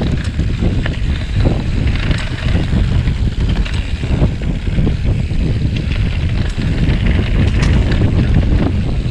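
Wind buffeting the microphone of a camera riding along on a bicycle, over a dense, uneven low rumble of the bike rolling over rough ground, with a few short clicks and rattles.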